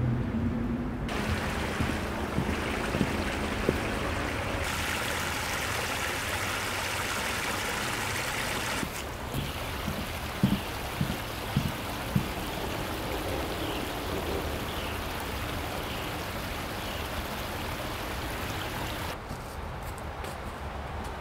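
Creek water running with a steady rush that changes abruptly several times, with a few footsteps knocking on a wooden footbridge about ten to twelve seconds in.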